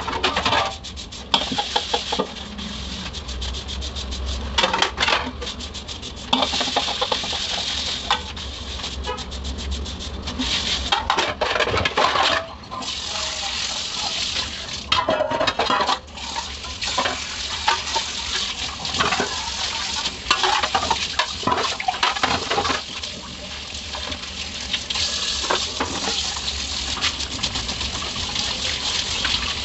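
Stainless steel plates being hand-washed in a steel sink: a soapy scrubber rubbing over the metal, with plates clinking and clattering against each other, and tap water running over them as they are rinsed partway through.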